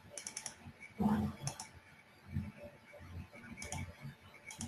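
Computer keyboard typing in short bursts of quick clicks, with a low dull thump about a second in.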